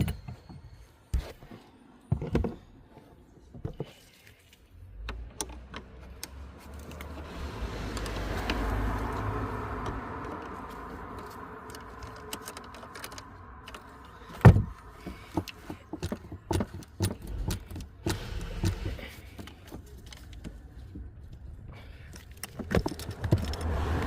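Metal clicks and clinks of hand tools as the battery's ground terminal is undone, with one loud knock about halfway through. A steady low rumble rises about five seconds in and fades out before the end.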